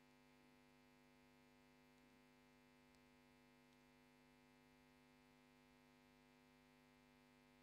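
Near silence: a faint steady electrical hum, with a couple of tiny clicks a few seconds in.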